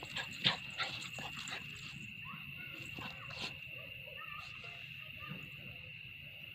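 Small dog giving a few short, sharp barks, the loudest about half a second in and another around three and a half seconds, over a steady high-pitched insect drone.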